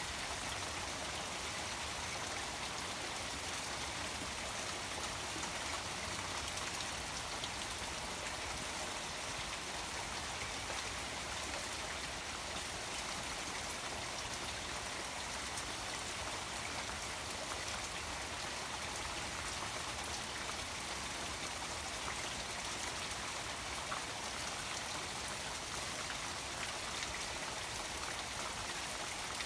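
Steady rain falling on a koi pond, countless drops pattering on the water, with the pond's small waterfall running steadily.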